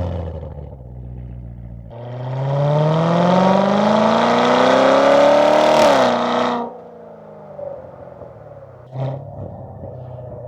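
Chevrolet C7 Corvette's LT1 V8 exhaust under a hard pull. It runs low for two seconds, then the pitch climbs steadily for about four seconds under heavy load and dips sharply just before the throttle closes. It falls back to a low burble with faint crackles and a short rev blip about nine seconds in.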